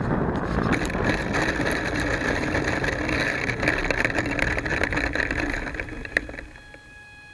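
Onboard sound of an E-flite Apprentice S 15E electric RC plane landing: wind and motor noise with the wheels rattling and bumping over dirt and grass. The noise cuts off sharply about six and a half seconds in, just after a knock, as the plane stops, leaving a faint steady high whine.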